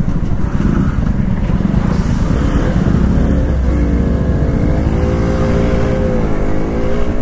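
Motorcycle engine running while riding, heard over the rider's own handlebars. Its pitch climbs steadily from about halfway through, then dips briefly near the end.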